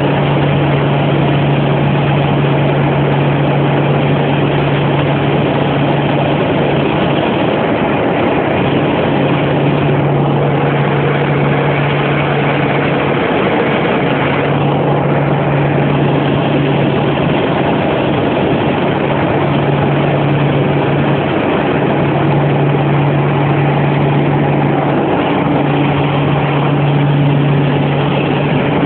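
Engine and propeller drone of a small airplane in flight, heard inside the cabin: a loud steady low hum over dense engine and wind noise, the hum dipping briefly every several seconds.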